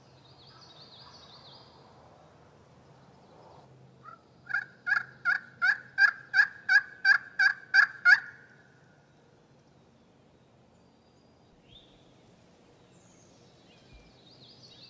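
A series of about ten loud turkey yelps, roughly three a second, running for a little over three seconds a few seconds in. A songbird sings faintly near the start and again near the end.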